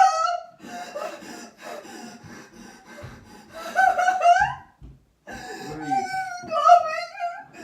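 A person faking a fit of coughing up blood: raspy hacking coughs, then drawn-out voiced gagging noises about halfway through and again near the end.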